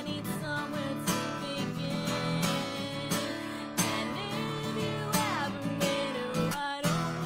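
A woman singing while strumming an acoustic guitar. Near the end the strumming and voice stop together for a moment, then start again.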